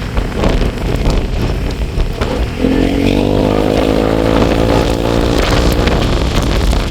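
Vehicle engine running while driving, with a steady low rumble; about two and a half seconds in, a pitched engine drone rises above it for roughly three seconds, then fades.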